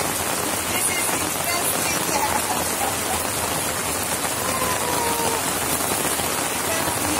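Steady rain falling on a tarp canopy and the wet ground around it.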